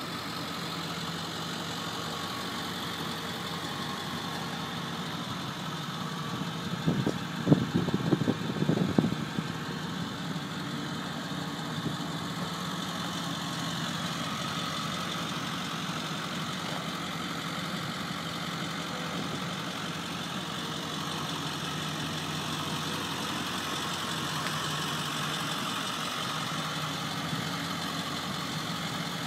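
The 7.3L Power Stroke V8 turbo diesel of a 2002 Ford Excursion idling steadily. A cluster of loud low thumps comes about seven to nine seconds in.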